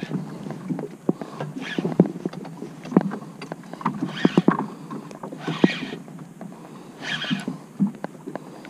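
Irregular knocks and clicks with several short hissing bursts, from a small boat on the swell and a spinning rod and reel being worked against a hooked false albacore.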